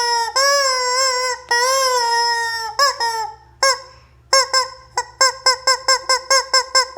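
Rubber chicken squeeze toy squawking as it is squeezed: two long held honks, a few short ones, a brief pause, then a fast run of short squawks, about three or four a second.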